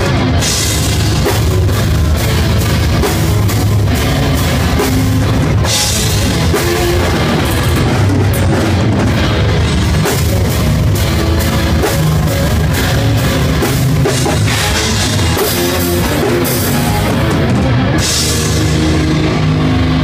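Death metal band playing live and loud: dense drumming with cymbal hits under distorted electric guitars through amplifiers, heard from beside the drum kit.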